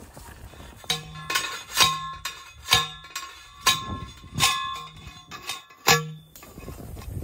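Steel T-post being driven into the ground with a manual post driver: about a dozen ringing metal clangs, roughly two a second, stopping about six seconds in.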